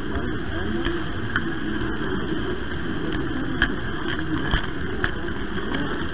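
Model train running along its track, heard from a camera riding on the train: a steady rolling rumble of wheels and drive, with occasional sharp clicks as the wheels cross rail joints.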